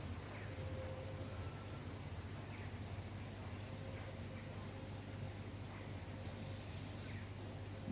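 Birds chirping faintly and briefly a few times over a steady low rumble.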